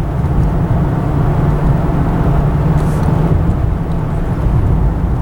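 Car driving along at steady speed, heard from inside the cabin: a steady low rumble of engine and road noise with a few held low tones.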